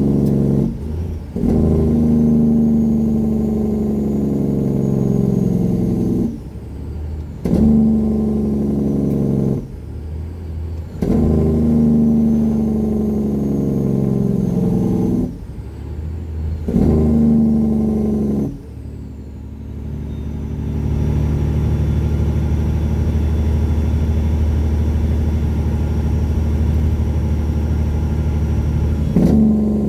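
Detroit Series 60 diesel in a 1999 Peterbilt 379, running through straight pipes under load with a high turbo whistle. The engine drops off briefly about five times as it works up through the gears, the whistle falling at each drop, then pulls steadily near the end.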